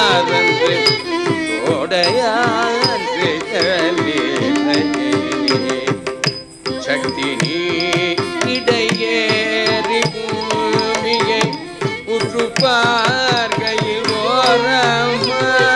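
Carnatic music for a Bharatanatyam Shabdam in raga Kambhoji, misra chapu tala: a melody line with quick wavering ornaments over a steady run of mridangam strokes and small cymbal clicks.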